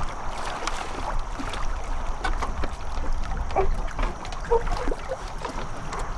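Water splashing and sloshing around a kayak, with many small knocks and clicks, as a swimmer climbs back into the boat during an assisted rescue.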